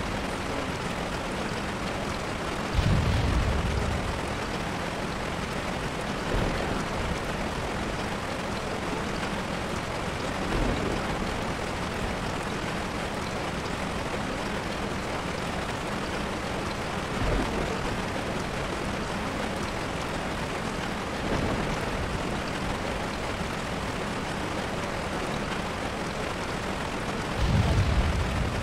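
Steady hissing noise with a brief low rumble every few seconds; the strongest rumbles come about three seconds in and near the end.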